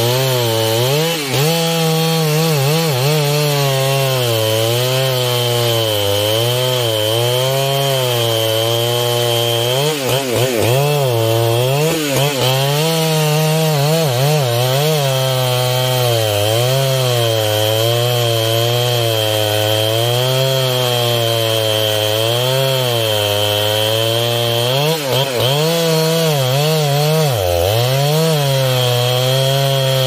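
Large two-stroke chainsaw running at high revs while cutting through trembesi wood, its engine note rising and dipping continuously as the bar bites and the load changes.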